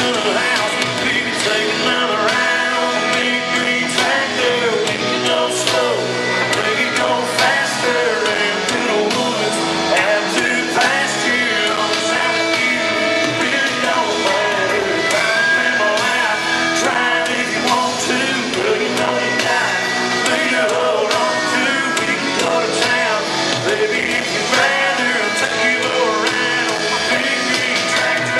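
Live country band performance heard through a venue PA: a male lead singer over strummed acoustic guitar, electric guitar and drums.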